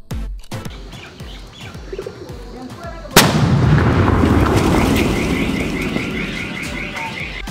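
A sutli bomb firecracker goes off about three seconds in: one sudden, very loud boom, then a long rumble that slowly dies away. Background music with a steady beat plays under it.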